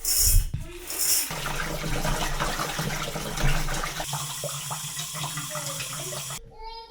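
Kitchen tap running steadily into the sink, with a low steady hum under the rush of water, shut off suddenly near the end; a few short hisses come just before it starts.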